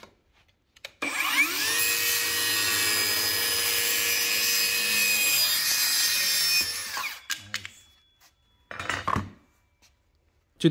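Compact 20-volt cordless circular saw spinning up about a second in, cutting through a thin board for about six seconds, then winding down.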